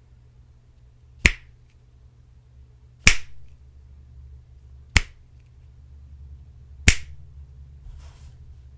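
Four crisp finger snaps, evenly spaced about two seconds apart, over a low steady hum.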